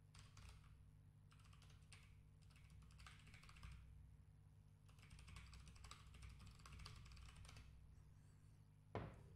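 Faint computer keyboard typing in several short bursts of clicks, over a low steady hum. A short, slightly louder soft sound comes near the end.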